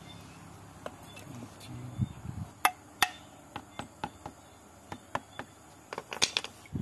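Scattered sharp clicks and light knocks of metal parts being handled: a new propeller shaft centre-bearing mounting being worked on the splined end of the shaft. The loudest taps come about three seconds in and again near the end.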